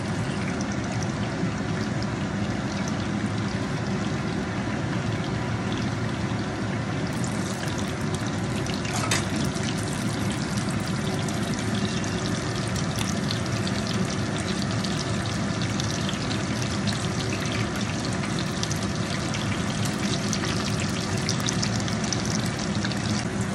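Eggplant slices frying in hot oil in a pan: a steady sizzle with fine crackling.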